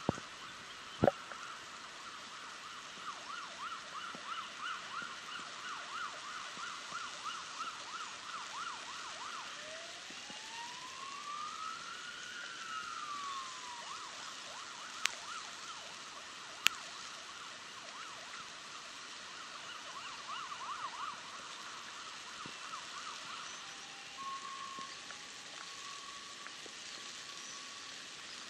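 Faint emergency vehicle siren over a steady hiss of rain. It sounds a fast yelp, then a slow wail that rises and falls once, then yelps again. Three sharp clicks stand out as the loudest sounds.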